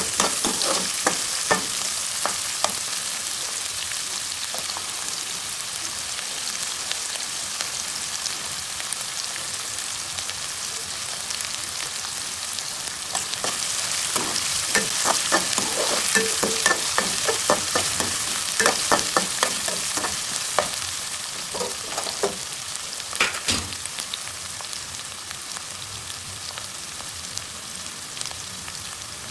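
Prawns and vegetables sizzling in hot oil in a pan: a steady frying hiss, broken by runs of sharp clicks and scrapes from stirring. The stirring is busiest around the middle, with one more burst a little later, and the sizzle eases off toward the end.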